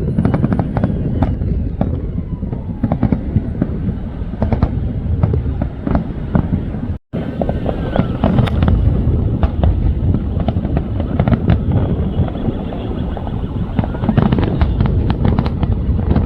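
Fireworks display: a dense run of bangs and crackles over a continuous low rumble. The sound cuts out completely for a moment about seven seconds in.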